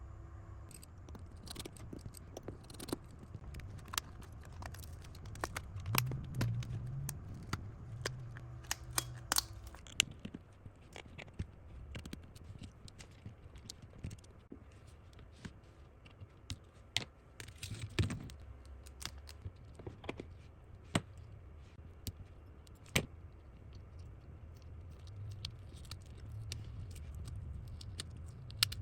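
Small repair tools clicking, tapping and scraping against a smartphone during a screen replacement, with irregular sharp clicks over a low handling rumble.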